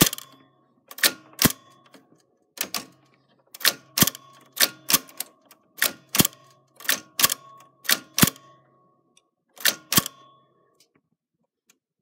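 Typewriter typing letter by letter: sharp clacks of the typebars striking the paper, often in quick pairs, each with a short metallic ring, about one or two strokes a second, stopping about ten seconds in.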